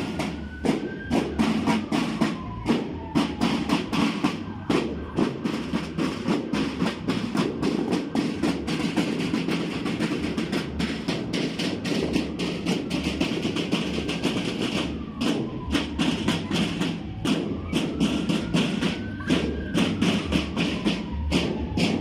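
Marching snare drums of a parade drum corps beating a steady, fast marching rhythm. A faint high tone rises and falls twice, once near the start and once near the end.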